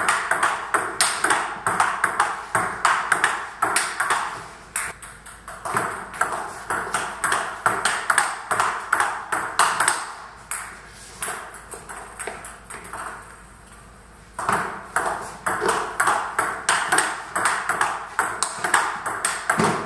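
Table tennis ball clicking off the bats and the table in a fast forehand looping drill, several hits a second. The hitting eases off for a few seconds past the middle, then picks up again.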